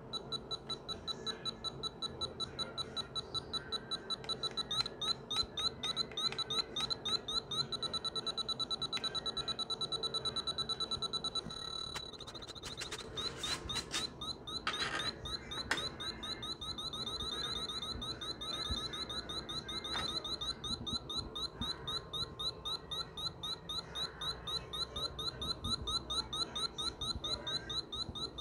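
Electronic refrigerant leak detector beeping in rapid, high-pitched pulses as its probe is held at the A/C condenser. The pulses run together into a near-continuous tone for a few seconds, the detector's sign of refrigerant at the probe. There are a few handling knocks partway through.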